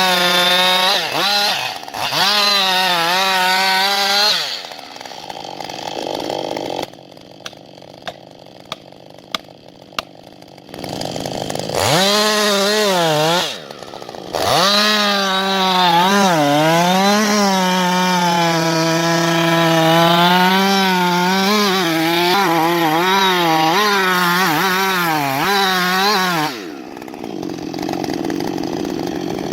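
Two-stroke chainsaw running near full throttle, its pitch sagging and recovering as the chain bites into wood. It runs in several bursts, with a quieter stretch in between that holds a few light clicks.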